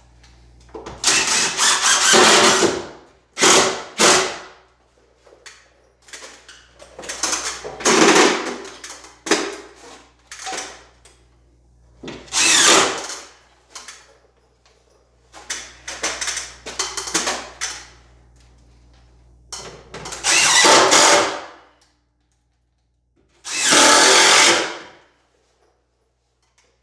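Power screw gun driving drywall screws through ceiling board into the framing, in short whirring runs of a second or two, one after another.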